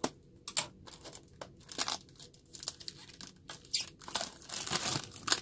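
Clear plastic shrink-wrap being crinkled and torn off a cardboard box by hand, in irregular short crackling bursts.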